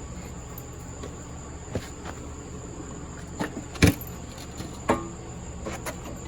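Scattered metallic clinks and knocks of hand tools on metal fittings, about five, the loudest near the middle and one that rings briefly. A faint steady high-pitched tone and a low hum sit underneath.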